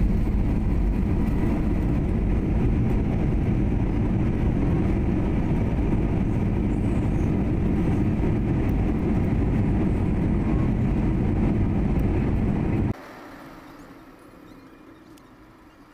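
Steady low rumble of a vehicle in motion, cutting off abruptly about thirteen seconds in.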